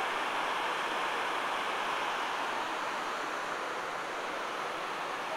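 The 9/11 Memorial's south reflecting-pool waterfall: water cascading down the pool's walls in a steady, even rush.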